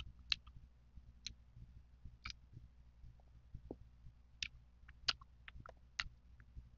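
Close-miked chewing of firm mango slices: sharp, irregular crunches and mouth clicks, about a dozen over several seconds.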